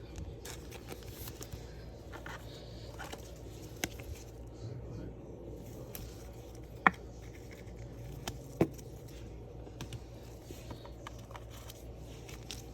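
Quiet handling of trading cards: a few light, sharp clicks and taps, about three standing out, over a low steady room hum.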